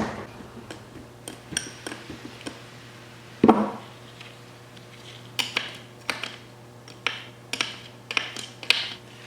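Metal clinks and knocks of hand tools and parts against the housings of a Triumph A-type overdrive as it is split apart. There is one heavier knock about three and a half seconds in, then a quick run of lighter clinks.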